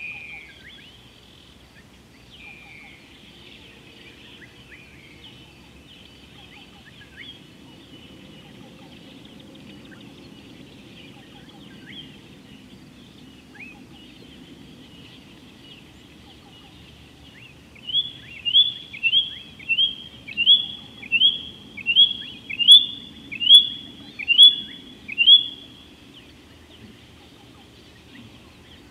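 A bird calling loudly, a run of about a dozen short notes that each fall quickly in pitch, evenly paced over about seven seconds. It sounds against a background of other birds chirping.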